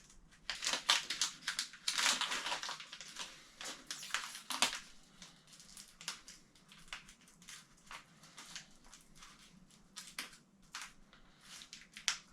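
Hands working at a small product's packaging and failing to open it: crinkling, crackling and rustling, busy over the first few seconds, then scattered crackles.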